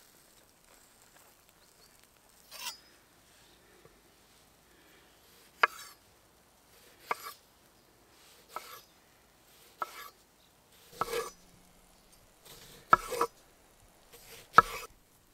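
Chef's knife slicing through a ripe tomato on a wooden cutting board, each slice ending in a sharp tap of the blade on the wood. About nine slices a second or two apart, starting a couple of seconds in, the loudest near the end.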